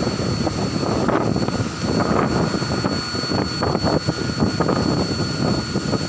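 Wind buffeting the microphone: an uneven, gusting rush with a steady high-pitched whine underneath.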